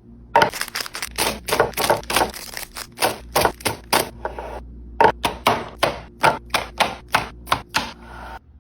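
Wrapped snacks being dropped one after another into a container: a quick run of sharp taps and clatters, about three or four a second, with a brief pause a little before five seconds in, stopping near the end.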